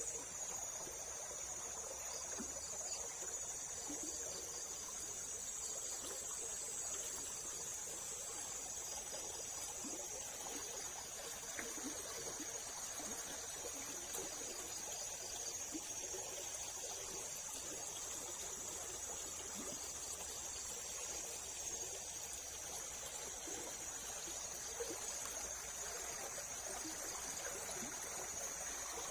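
Water running and trickling steadily, as from a small river weir, with a constant high-pitched whine over it.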